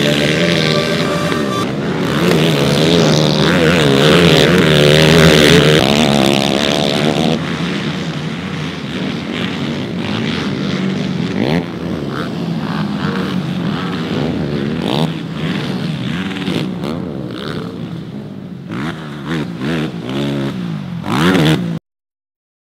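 Racing ATV engines revving hard, their pitch climbing and dropping with the throttle as several machines overlap. The sound cuts off abruptly near the end.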